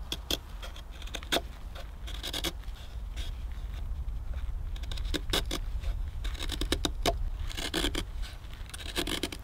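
Knife blade shaving thin curls down a wooden stick to make a feather stick: repeated short scraping strokes, one after another.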